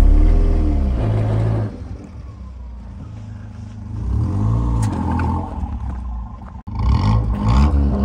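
A car engine revving up and dropping back several times in repeated surges. It is loudest at the start and again near the end, quieter in between.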